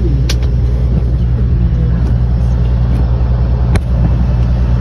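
Peterbilt 379 semi truck's diesel engine running with a steady low rumble. Two sharp clicks, one just after the start and one near the end.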